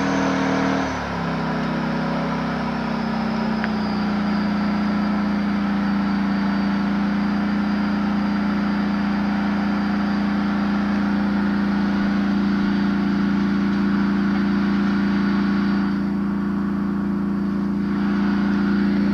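Tank engine running close by, its pitch dropping about a second in and then settling into a steady drone.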